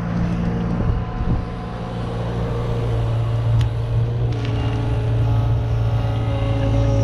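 Kubota KX71 mini excavator's diesel engine running steadily under working load while the bucket is swung and lowered into the soil. A second, higher steady tone joins about four seconds in.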